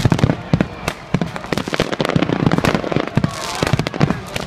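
Fireworks going off in a rapid, irregular barrage of sharp bangs and crackles, many reports overlapping.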